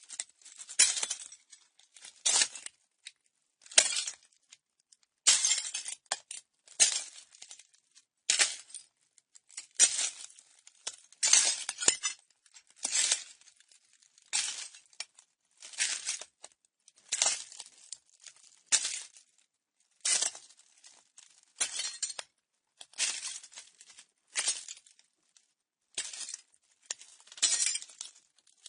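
Slow footsteps over broken glass: each step crunches and grinds the shards underfoot with a sharp, bright crackle. The steps come about once every second or so, with short silences between them.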